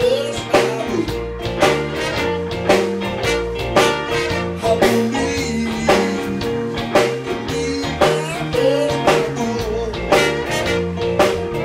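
Live blues band playing an instrumental passage with a steady beat.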